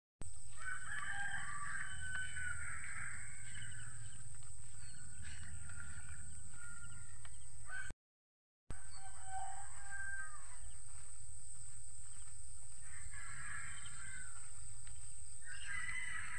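Rooster crowing several times over a steady high-pitched whine and a low rumble; the sound cuts out for under a second about halfway through.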